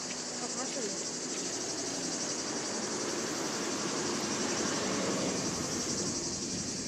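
Steady, high-pitched chorus of insects shrilling with a fast, even pulse, with a fainter murmur of voices underneath.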